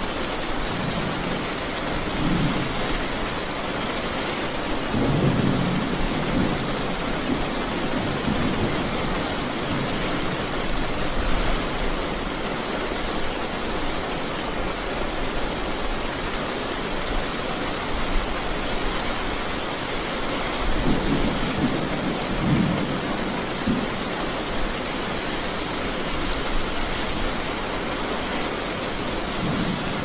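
Steady rain hiss from a thunderstorm, with low rolls of thunder coming several times, the strongest about five seconds in and another about twenty seconds in.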